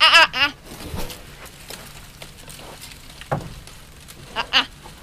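Two short, high-pitched warbling animal calls with a bleat-like quaver, one right at the start and a fainter one about four and a half seconds in.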